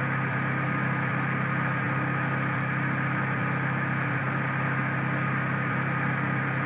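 Steady low background hum with a thin, faint high tone held above it.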